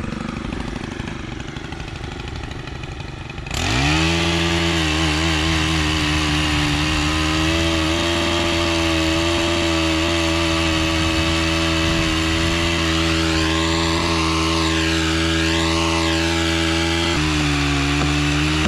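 Gas chainsaw throttled up about three and a half seconds in and held at a steady high rev, rising a little near the end before dropping off.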